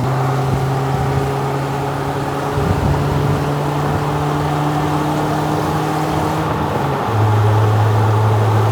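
Toyota All-Trac's engine and patched exhaust droning steadily inside the cabin while driving, over tyre and road noise. About seven seconds in the drone steps louder and a little lower in pitch.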